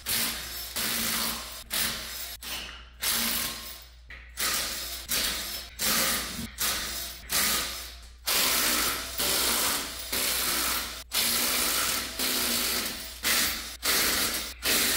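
Cordless impact wrench spinning lug nuts off a car's wheels in about twenty short bursts, each a second or less, with brief pauses between.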